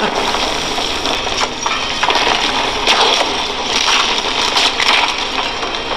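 Fight-scene sound effects from a TV soundtrack: a dense, continuous crashing and cracking rush of blows and breaking debris, with several harder hits standing out along the way.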